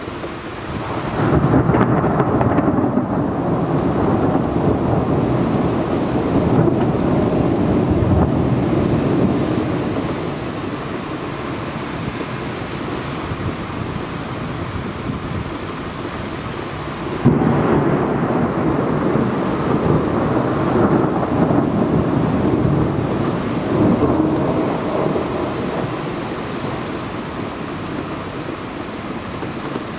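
Steady rain with two long rolls of thunder, heard through a camera's built-in microphone. The first builds about a second and a half in and rumbles on for several seconds. The second starts with a sudden clap a little past halfway and rolls on for several seconds before fading back to the rain.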